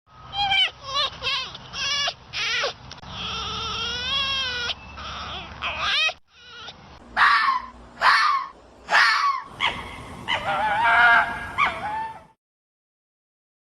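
A run of animal calls cut together from separate recordings: several short pitched cries, a longer wavering call, more short loud cries, then a longer call.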